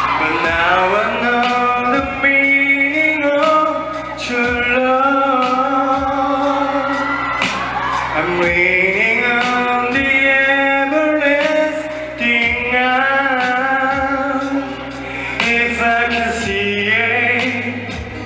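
A man singing live into a handheld microphone over backing music, holding long wavering notes.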